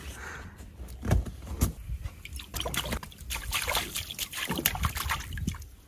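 Shallow water in an inflatable paddling pool splashing and sloshing as a toddler steps in and slaps the surface with his hand, in irregular short splashes. Two dull thumps sound about a second in and again half a second later.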